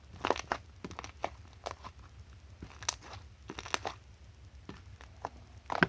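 Homemade slime being squished and pressed by hand, giving irregular sharp little pops and clicks.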